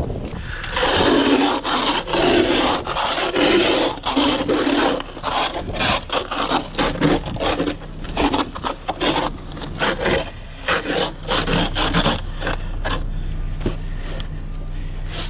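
An ice scraper scraping freezing-rain ice off a car's rear window in many quick, uneven back-and-forth strokes, which stop about twelve seconds in.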